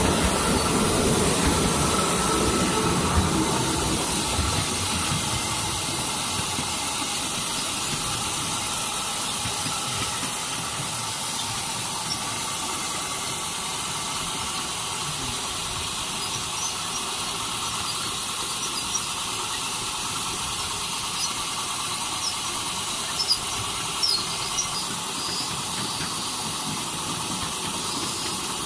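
Ride-on miniature railway train running along its narrow-gauge track: a steady rumble and hiss of the small wheels on the rails, with a few faint clicks late on.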